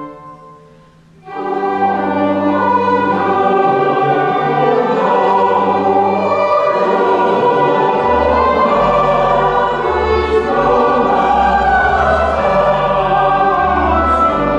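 Mixed church choir singing with organ accompaniment. A held chord dies away into a brief pause, then the choir and organ come in together about a second in and sustain full chords, with deep organ bass notes joining about halfway through.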